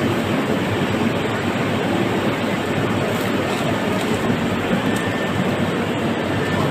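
Steady rushing background noise of a busy covered market, an even hum and hiss with no distinct event standing out.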